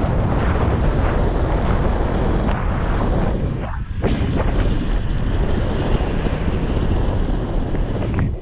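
Wind buffeting the microphone of a handlebar-mounted action camera on a fast bicycle descent: loud, continuous rumbling wind noise, heaviest in the low end, easing briefly about four seconds in.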